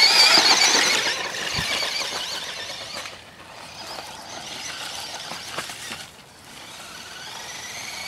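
Toy RC car's small electric motor whining at high pitch, the pitch wavering as the throttle is worked. It is loudest in the first second, fades, and builds again near the end.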